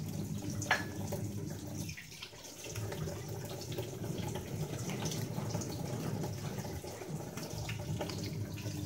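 Water running steadily from a kitchen tap into a sink, with a single light knock about a second in and a brief lull near two seconds.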